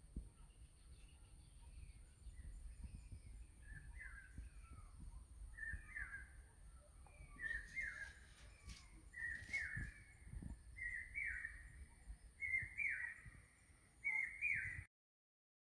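A bird calling over and over: short paired notes about once a second that grow louder and slightly higher in pitch, until the sound cuts off suddenly near the end. A low wind rumble runs underneath.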